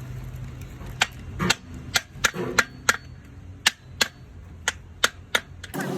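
Irregular sharp strikes of a hammer on metal, about a dozen over several seconds, with a steady low hum underneath that stops about a second and a half in.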